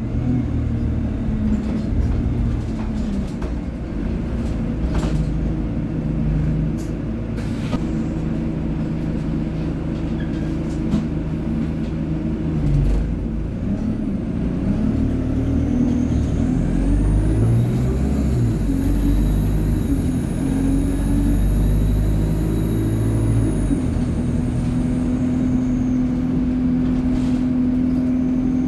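ADL Enviro 200 single-deck bus running on its diesel engine and Allison automatic gearbox, the engine note changing in steps. About halfway through, a high turbocharger whine rises, holds for several seconds and then fades.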